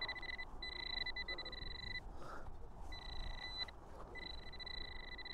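Metal-detecting pinpointer giving a steady high alert tone in four stretches, stopping and starting as it is moved on and off a buried metal target.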